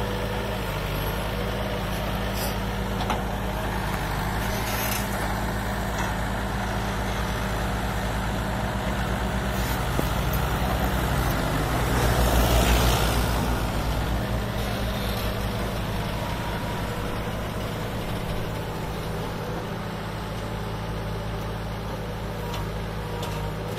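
Excavator's diesel engine running steadily, swelling louder for a few seconds about halfway through, with a few faint clicks.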